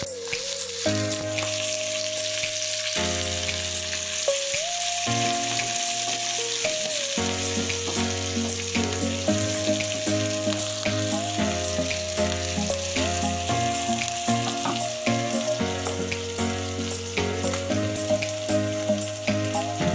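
Diced potatoes, jengkol and green chilies sizzling as they fry in oil in a pan, stirred now and then with a wooden spatula. Background music with a simple melody and a bass line plays throughout.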